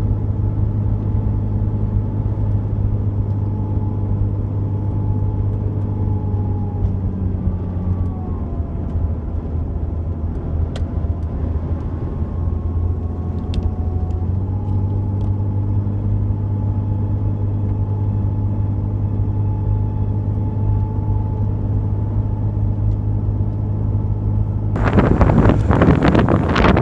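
Jeep Cherokee XJ running on a winding mountain road, its engine and road noise heard from inside the cabin as a steady drone; the engine note shifts in pitch a couple of times. About two seconds before the end it gives way to wind buffeting the microphone.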